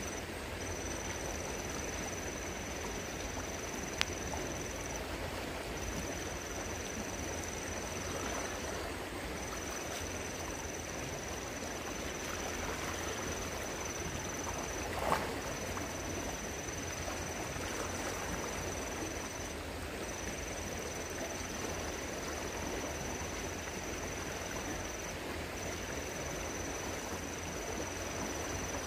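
Steady rush of stream water running, with a thin high steady tone over it that breaks off briefly every few seconds. A short knock or splash stands out about halfway through.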